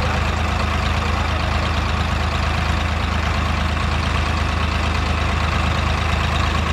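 Two farm tractors' diesel engines running steadily with a deep, even hum.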